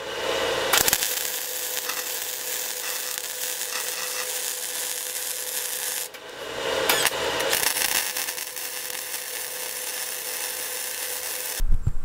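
Wire-feed (MIG) welder running on steel square tubing, welding caps onto the tops of the supports: the steady crackling hiss of the arc over a steady hum. It is broken once by a short pause about six seconds in.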